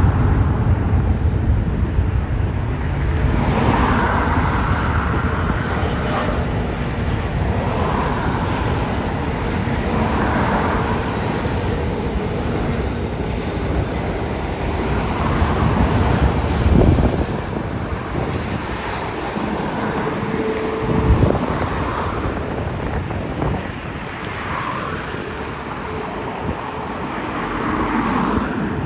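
Outdoor roadside noise near an airport: traffic passing and a jet aircraft's deep rumble, loudest near the start and slowly fading, with wind buffeting the microphone.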